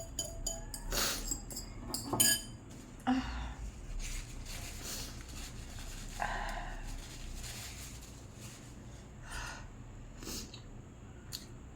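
A person's short breaths and mouth noises, about half a dozen separate sounds a second or so apart, from someone eating fiery-hot instant noodles and reacting to the heat.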